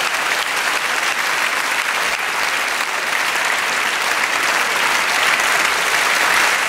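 A large theatre audience applauding steadily, swelling slightly near the end.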